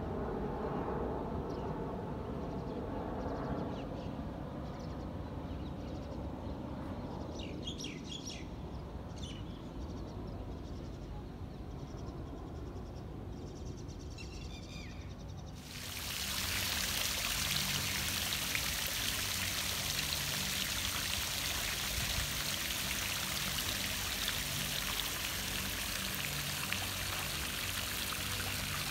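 A small fountain jet splashing into an ornamental pool, a steady hiss that starts abruptly about halfway through and carries on. Before it, a passing airplane's drone fades away over the first few seconds, and a few short bird chirps come in between.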